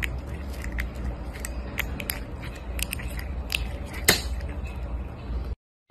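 Grey cat biting and licking a person's wrists: many sharp wet mouth clicks and smacks over a low steady rumble, cutting off abruptly near the end.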